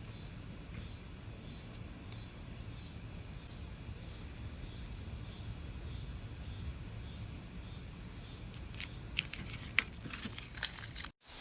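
A high-pitched insect call repeating about twice a second over a steady low outdoor rumble. A few sharp clicks and taps come in the last couple of seconds, just before the sound cuts out.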